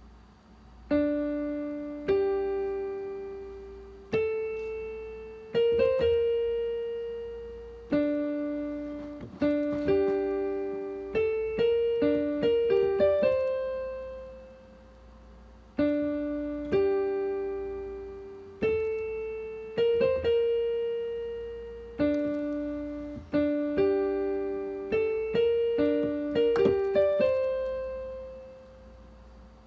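Solo piano playing a slow melody of single struck notes, each fading away, with a short phrase repeated about four times.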